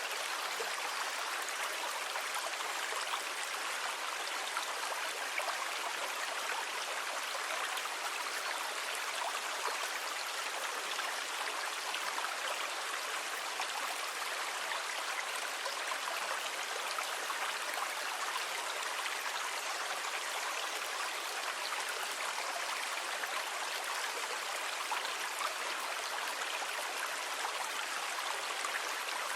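Steady rushing water: an even hiss that holds at one level throughout, with no separate wave surges or pauses.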